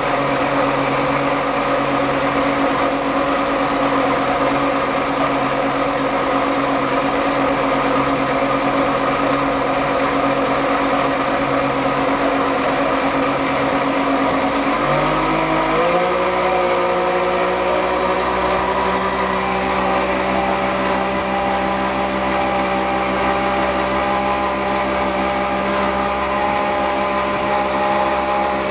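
Yamaha 60 hp two-stroke outboard motor running under way at speed, over the rush of wind and the wake. About halfway through its pitch rises over a second or so as the engine speeds up, then holds steady at the higher pitch.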